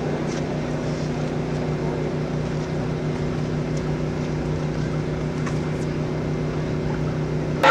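Steady machine hum with several low steady tones, even in level, broken only by a few faint ticks.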